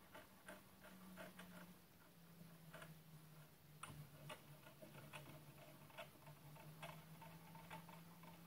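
Near silence: faint, irregular clicks and taps over a low, steady hum.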